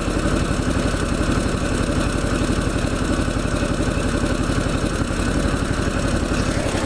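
Riding mower engine running at low idle through a newly fitted small muffler: a steady, evenly pulsing exhaust note, loud enough to read about 80 to 83 dB on a sound meter held close by.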